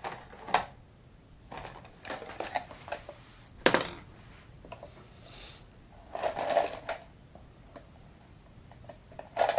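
Paintbrushes clicking and clattering against each other and the tabletop as they are sorted through and picked up, in short scattered bursts with one sharper clack a little before four seconds in.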